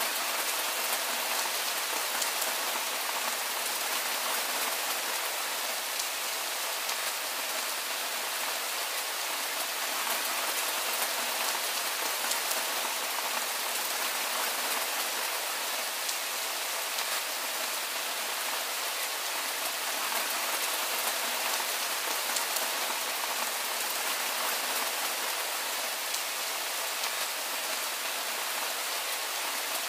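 Soft rain falling steadily: an even hiss with scattered faint drop ticks.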